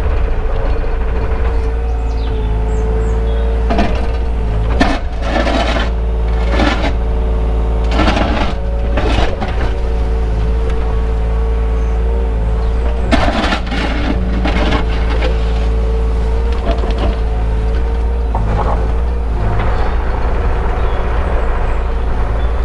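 Takeuchi excavator's engine and hydraulics running steadily under load, heard from inside the cab, with a constant low drone and hum. Several short bouts of scraping and clunking come through as the bucket works mud up a bank.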